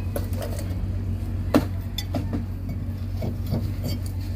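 Metal clinks and knocks as a brake drum is handled and slid over freshly fitted brake shoes onto the hub, with one sharper clink about a second and a half in. A steady low hum runs underneath.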